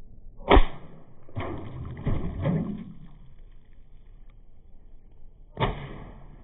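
Two airsoft rifle shots about five seconds apart, each a sharp crack followed after a second or so by a brief clatter.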